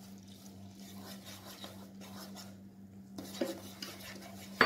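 Batter being mixed by hand in a steel bowl: fingers rubbing and scraping flour and coconut milk against the metal, with a sharp knock near the end.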